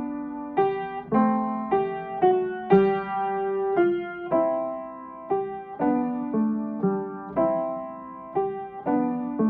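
Piano playing a simple melody with chords in a steady triple time, each note struck and left to fade.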